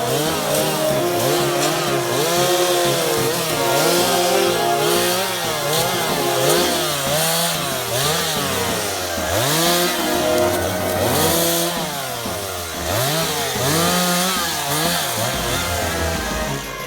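Two-stroke chainsaw revving up and down over and over, about once a second, as the throttle is opened and released between cuts.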